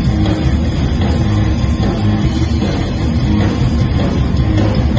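Live rock band playing loud, with electric guitar, bass and drums and the low end heaviest.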